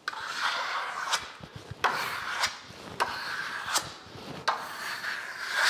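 Steel trowel scraping over a wall of fresh lime spatula plaster in repeated strokes, each ending in a sharp click as the blade leaves or springs off the surface, roughly every half second to a second. This is the plaster being scratched and roughened to give it a worn concrete look.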